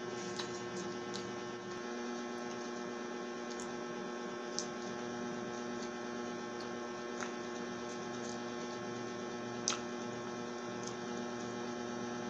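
Steady electrical hum made of several fixed tones, with a few faint clicks of mouth sounds from chewing cake.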